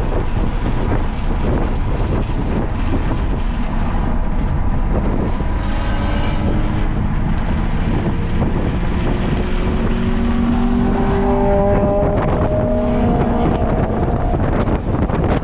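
Heavy wind buffeting over a vehicle's engine on a race track. Through the second half the engine note climbs gradually, as the vehicle accelerates.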